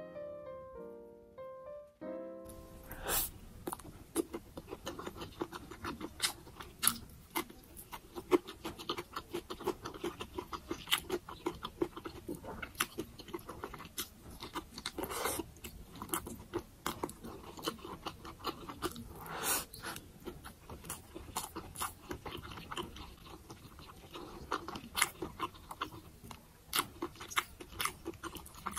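Close-miked chewing and mouth sounds of eating braised pork adobo: many sharp, irregular clicks and smacks. A few piano notes sound at the start and stop after about two seconds.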